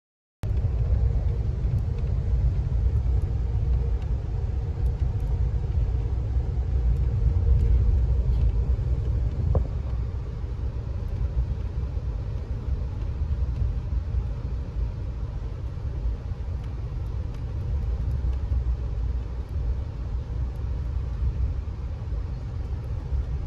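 Steady low rumble of a moving vehicle, cutting in suddenly about half a second in.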